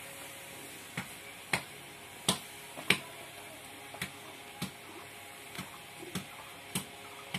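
A series of sharp clicks, roughly one or two a second, starting about a second in, over a steady low background.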